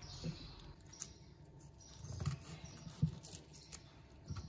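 Knife cutting open a boiled ketupat: faint crackling and rustling of the woven coconut-leaf casing, with a few soft thumps about two, three and four seconds in.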